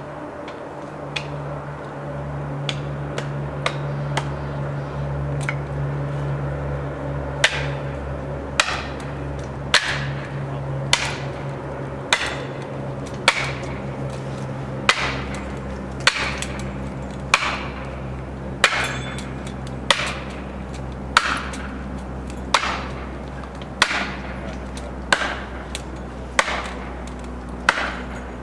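Hammer blows driving a felling wedge into a tree cut. The blows are light and scattered at first, then become hard and regular, about one every second and a bit, over a steady low engine hum.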